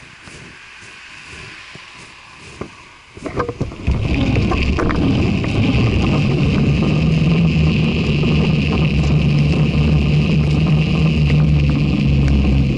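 Bicycle riding noise. A few quiet seconds with scattered light clicks, then from about four seconds in the rush of the knobby tyre rolling on wet pavement and wind on the microphone rises to a steady, loud roar as the bike gets under way.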